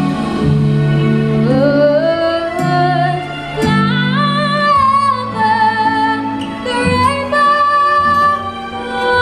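A woman singing live into a microphone over backing music through PA speakers, holding long notes and gliding between pitches over steady low accompaniment.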